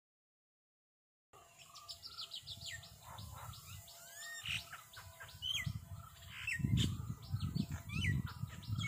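Silence for about the first second, then outdoor ambience of many small birds chirping in quick, rising and falling calls. A low rumble joins in over the last few seconds.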